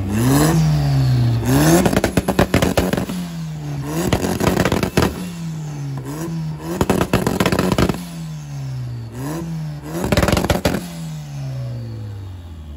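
A car engine revved hard again and again, its pitch climbing and falling about half a dozen times. Bursts of exhaust crackles and pops come as the revs drop, and the engine falls back toward idle near the end.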